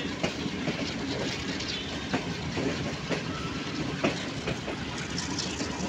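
Passenger train rolling along, heard from inside a carriage: a steady rumble with the wheels clicking over rail joints about once a second.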